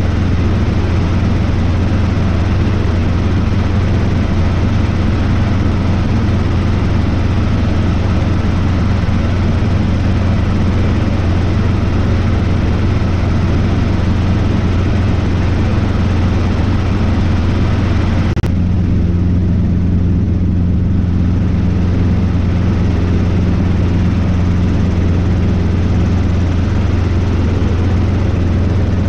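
Robinson R22 helicopter in cruise, heard from inside the cabin: the engine and rotors make a constant low drone with a rushing hiss over it. About two-thirds of the way through, the sound changes abruptly: the hiss drops and a steady higher hum comes through.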